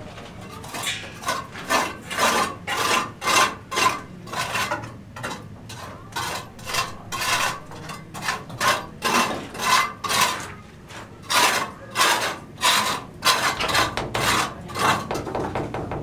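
A metal trowel scraping mortar against brickwork in quick, repeated strokes, about two a second, with a slight metallic ring in each stroke.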